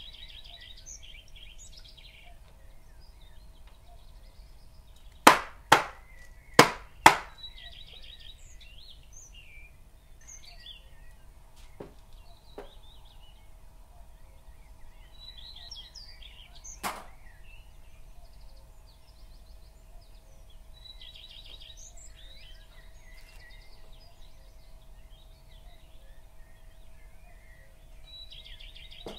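Small birds chirping throughout over a faint steady hum. About five seconds in come four loud sharp knocks in two quick pairs, a batter-filled cake pan tapped down on the counter to knock out air bubbles, and one lighter knock comes later.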